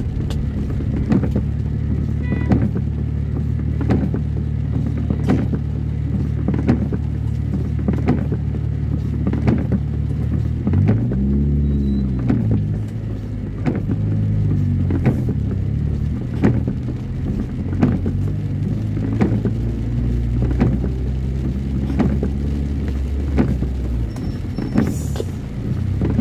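Car engine running as heard from inside the cabin, its pitch rising and falling once about halfway through. Windscreen wipers sweep the wet glass in regular strokes, a knock roughly every second and a half.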